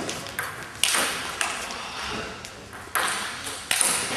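Table tennis ball being hit back and forth, sharp clicks off the bats and the table about every half second to second. Each hit has an echo that dies away, as in a large sports hall.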